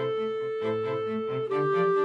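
Background music: bowed strings, a held melody note that steps down about a second and a half in over a moving lower line.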